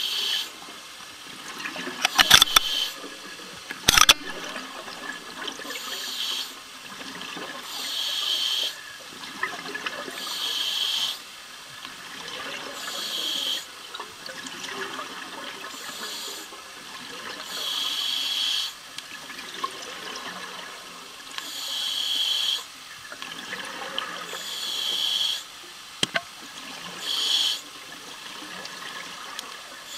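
Underwater breathing of a diver on a regulator: a bubbly hiss of exhaled air every two to three seconds, with a few sharp clicks about two and four seconds in.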